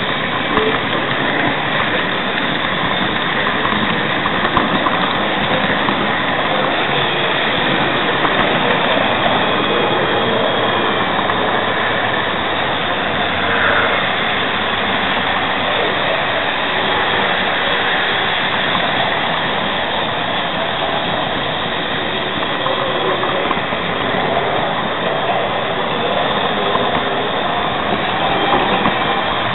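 Märklin-Hamo model steam locomotive 03 2202-4 running on model track, heard from a camera wagon it pushes right in front of it: a steady running noise of small wheels rolling on the rails and the locomotive's electric motor.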